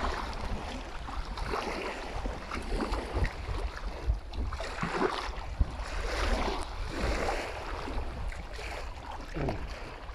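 Wind on the microphone over lapping lake water, with irregular splashing as a caught fish is pushed into a keep net standing in the shallows.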